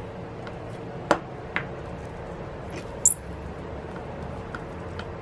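A few small, sharp clicks and light metallic ticks, the loudest about a second in and about three seconds in, from a precision screwdriver and the tiny screws of the flex-cable bracket inside an opened iPad Pro. A faint steady hum runs underneath.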